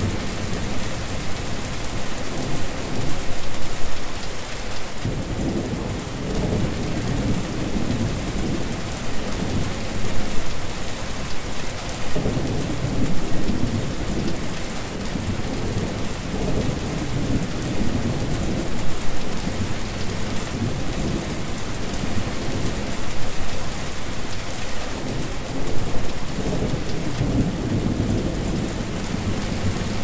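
Steady rain pattering on a wet surface, a continuous even hiss. Under it, a low rumble swells and fades several times.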